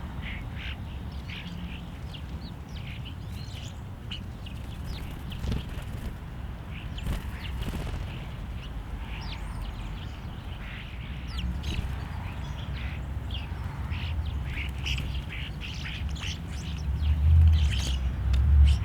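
Backyard songbirds calling at a feeder: many short chirps and chip notes, overlapping, over a low rumble that swells near the end.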